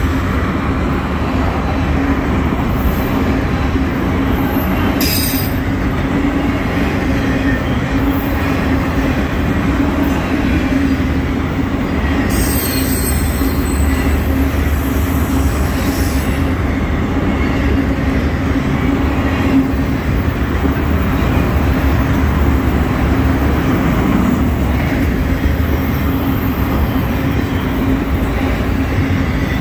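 Autorack cars of a long freight train rolling past close by: a steady, loud rumble of steel wheels on the rails, with brief high-pitched wheel squeals about five seconds in and again around twelve seconds in.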